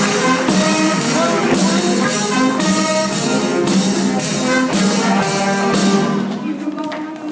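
Live band playing an upbeat number with brass and drums, cymbal hits keeping a steady beat about twice a second; the music thins out about six seconds in.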